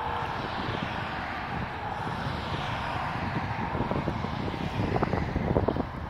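Road traffic going by: a vehicle passes, its sound sweeping down in pitch over a few seconds, over gusty wind rumble on the microphone.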